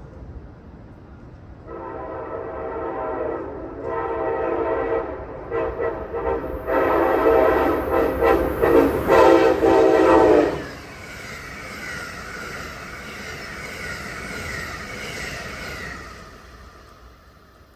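Amtrak train's Nathan K5LA five-chime air horn sounding a series of blasts: two long ones, a couple of short toots, then a long blast of about four seconds as the train reaches the microphone. It cuts off about ten seconds in, and the rush of the passing high-speed train follows and fades away.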